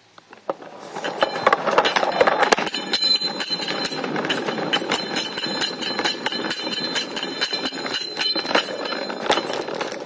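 A metal sink strainer used as an improvised bell, struck rapidly by beads on cable ties turning with a toy car's front axle: a fast, continuous metallic clattering and ringing. It starts about half a second in, builds quickly and dies away near the end, mixed with the rattle of the rubber-band-powered car rolling along the floor.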